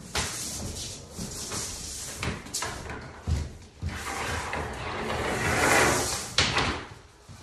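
Graco 495 airless paint sprayer with a 310 fine-finish low-pressure tip spraying, a loud hiss in several passes with brief breaks that is loudest near the end and then cuts off, with a few knocks and thumps along the way.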